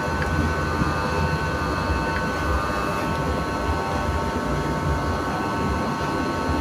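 Steady machine hum with a low drone and a few thin high tones, holding level without change.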